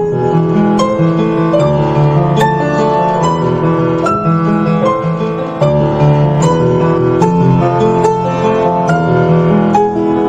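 Background music led by piano, with sustained notes and a steady pulse of new notes.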